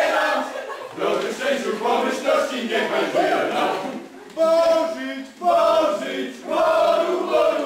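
A group of people singing and shouting together in a rowdy party chant, in phrases, the last few ending on longer held notes.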